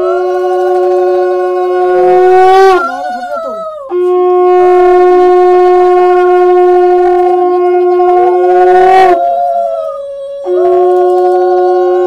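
Conch shells blown in long held blasts, two tones sounding at once. Each blast wavers and slides down in pitch as it dies away, with short breaks about three seconds in and again near ten seconds before the blowing resumes.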